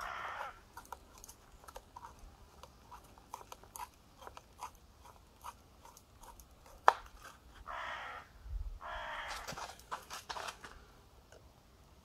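Steel reamer of a Victorinox Farmer X Alox pocket knife twisting and grinding into bone, giving scraping, crunching strokes with small clicks in between. Rasping spells come near the start and again from about eight to ten seconds, and one sharp crack about seven seconds in is the loudest sound.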